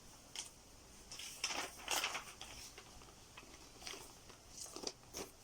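Paper and cardboard record sleeves rustling and scraping in short bursts as a vinyl LP and its sleeves are handled.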